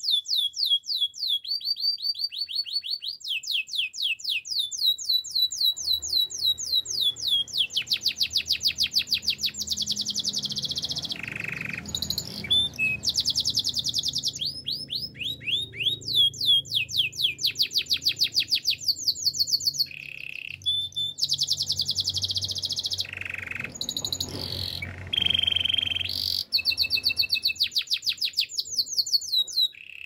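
Canary singing a long, continuous song of high, rapid trills. It repeats fast sweeping notes in phrases that shift speed and pitch every second or two, with a few brief breaks between them.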